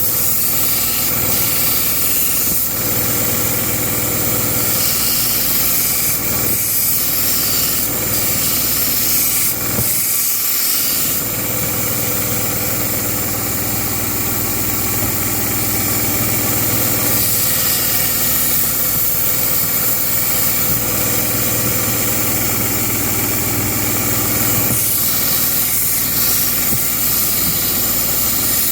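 Belt grinder running while a chipped knife blade is ground on its soft platen: a steady motor hum with a hissing belt, the sound shifting every few seconds as the blade is worked.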